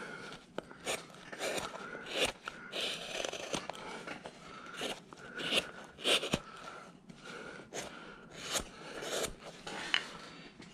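Hand carving tool cutting chips from a wooden block, in a series of short, irregular scraping strokes, one or two a second.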